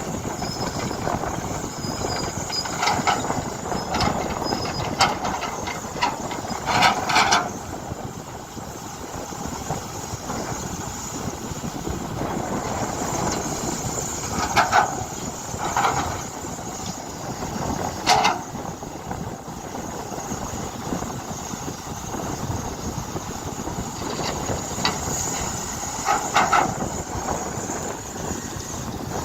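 Excavator diesel engine running steadily while digging, with about a dozen short, sharp squeals and clanks from the working machine scattered through, several bunched together around a few moments.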